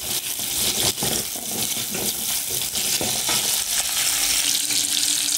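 Sliced red onions sizzling in hot cooking oil in an aluminium pot, stirred with a plastic spatula that gives a few short scrapes and taps against the pot.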